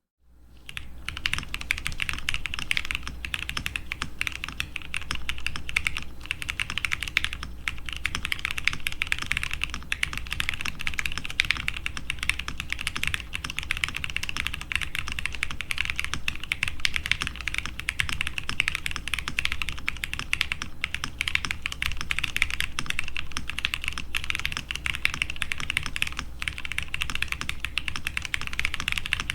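Steady, fast typing on a Transition Lite TKL mechanical keyboard filled with all its foams, a dense run of keystrokes. The owner hears a fuller sound with some degree of hollowness.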